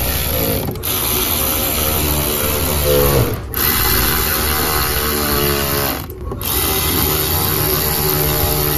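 Milwaukee M12 cordless electric ratchet running in short spells as it spins a socket on the wheel-arch liner screws. Its motor whine rises and falls in pitch as it starts and stops, and it breaks off briefly about a second in, again near the middle, and once more past the halfway point.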